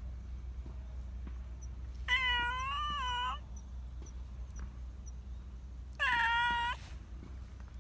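Black long-haired Persian cat meowing twice, a long wavering meow about two seconds in and a shorter one near the end, calling for attention.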